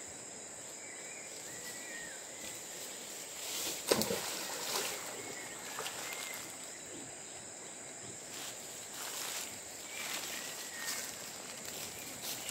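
Steady high-pitched drone of forest insects, with a few brief sharp noises on top, the loudest about four seconds in.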